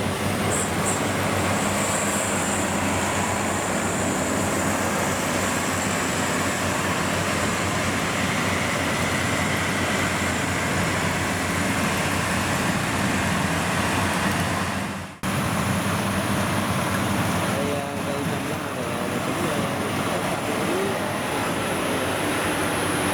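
Rice combine harvester engine and threshing machinery running steadily at work, a dense, loud mechanical noise with a low hum. The sound cuts out abruptly for a moment about 15 seconds in and then carries on.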